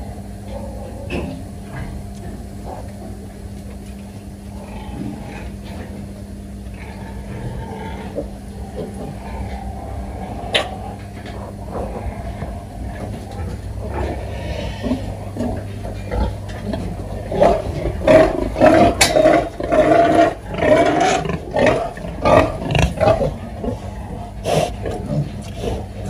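Domestic pigs grunting, with a run of loud, quick grunts in the last third, over a steady low hum.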